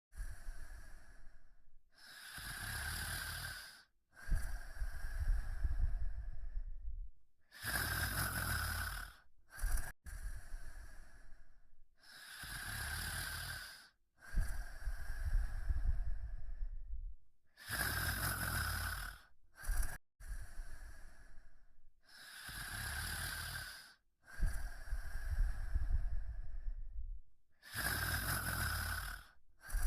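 Snoring in slow, regular breaths, each lasting a couple of seconds and separated by short silent gaps. The pattern repeats evenly about every ten seconds.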